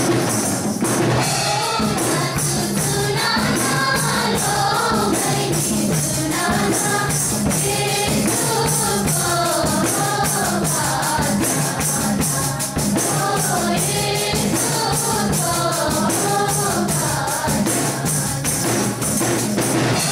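A group of young women singing a hymn together into microphones, with a tambourine struck in a steady beat throughout.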